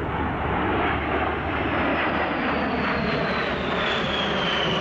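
Boeing B-52 Stratofortress bomber's eight jet engines passing low overhead: a broad rushing engine noise with a high whine that falls steadily in pitch as the aircraft goes by.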